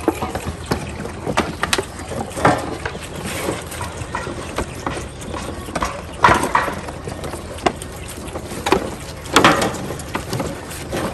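Goat kids suckling from nipple bottles on a feeding stand: irregular sucking and smacking clicks, with three louder, longer noises spread through.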